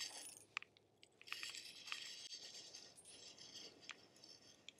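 Faint rustling in patches with scattered small clicks and rattles: close handling noise, as a just-caught walleye and its lure are handled.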